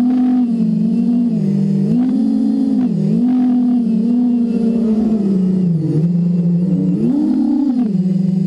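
FPV quadcopter's electric motors and propellers whining, heard from the camera on the drone itself, the pitch dipping and climbing again and again as the throttle is worked.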